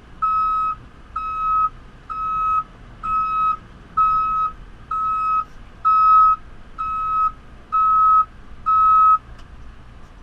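Reversing alarm of a JCB 3CX backhoe loader beeping steadily, a little more than one beep a second, as the machine travels backwards; it stops about nine seconds in. A faint engine hum runs underneath.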